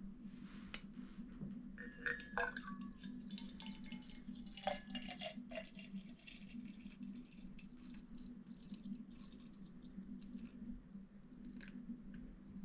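Liquid being poured with glassy clinks and a ringing tone that slides down in pitch, over a steady low hum; faint.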